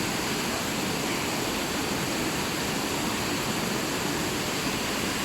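Small waterfall splashing into a rocky pool, a steady, even rush of water.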